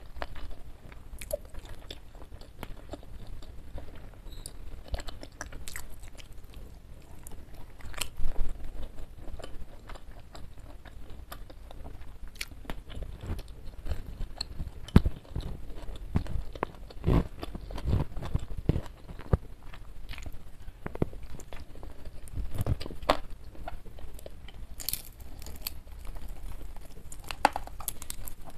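Chewing and biting food, with irregular crunches. Near the end, crispy fried chicken is pulled apart by hand with a crackle.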